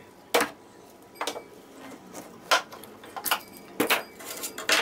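Clamps being loosened and taken off a workbench: a series of sharp, irregular clicks and knocks as metal clamp bars and plastic handles are worked and set down on wood.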